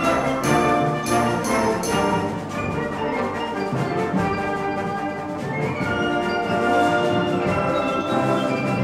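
Concert wind band playing, with brass and woodwinds in sustained chords. Several sharp percussion strikes cut through in the first two seconds.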